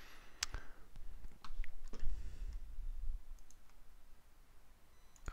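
A handful of scattered, sharp computer mouse and keyboard clicks, with a faint low rumble around two seconds in.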